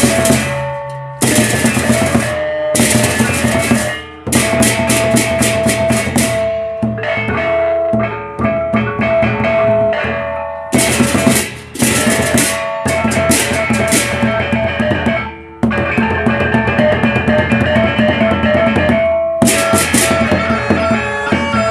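Sasak gendang beleq ensemble playing: large barrel drums beaten with sticks and clashing rencek cymbals, over a steady melody line that moves in steps. It strikes in suddenly at the start, with a few short breaks that each end in loud accented hits.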